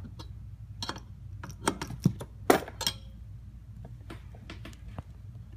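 A wrench clicking and clinking on brass compression-fitting nuts as they are loosened and backed off: scattered light metallic clicks, the loudest a few about two to three seconds in.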